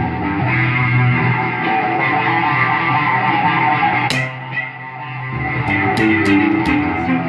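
Instrumental music led by guitar over a bass line; the bass drops out for about a second midway and the music dips briefly before picking up again.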